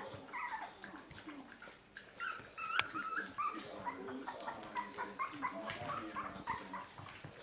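German Spitz puppies whimpering and squeaking: many short, high-pitched cries, one after another and overlapping. A sharp click about three seconds in.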